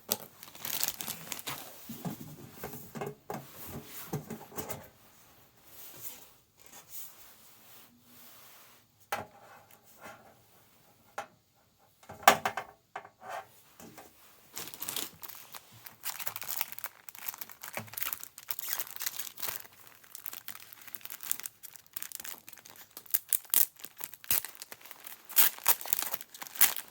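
Packaging being unwrapped by hand: irregular crinkling and tearing with small handling clicks, a sharp knock about twelve seconds in, and busier crinkling near the end.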